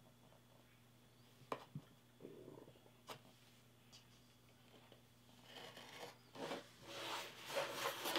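A few small clicks and some light scratching as a craft knife scores painter's tape against a plastic ruler on a wooden board. Over the last few seconds comes a louder stretch of rubbing and scraping as the plastic ruler is slid across the board.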